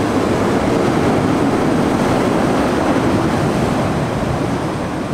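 Ocean surf breaking against a rocky shore: a steady, loud rushing wash of water.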